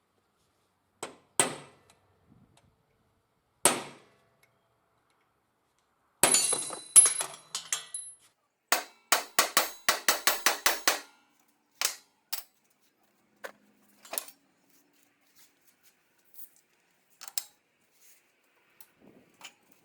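Hammer blows on a broken, rusted bolt stuck in a cast turbo housing, shocking it to break the corrosion loose: a few single metallic strikes, some ringing, then a quick run of about four blows a second, then more scattered blows.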